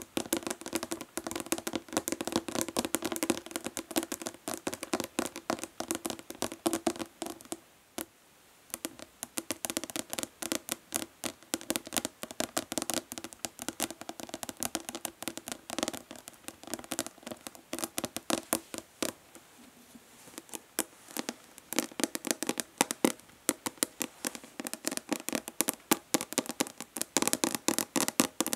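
Natural fingernails tapping fast on a plastic body lotion bottle: rapid clicky taps with a hollow ring, pausing briefly about eight seconds in.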